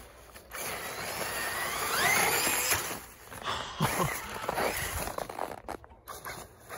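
Traxxas E-Revo 2.0 RC monster truck's electric motor whining as it is driven through snow. The pitch rises about two seconds in as it accelerates and falls again near four seconds.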